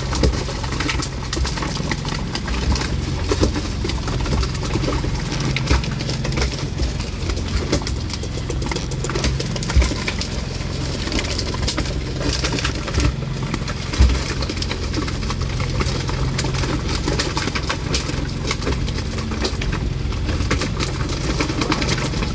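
An engine running steadily with a low hum, over a constant rushing noise, with a couple of short knocks partway through.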